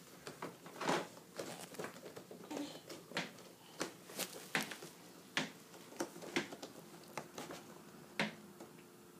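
Faint, irregular soft clicks and rustles of handling: a person touching and petting a cat close to the phone's microphone.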